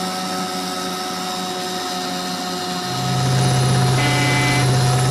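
Motorboat's outboard motor running at speed, growing louder about three seconds in.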